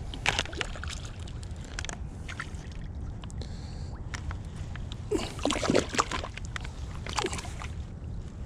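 A hooked smallmouth bass splashing at the water's surface as it is played in at the shoreline, in irregular bursts that are strongest about five to six seconds in.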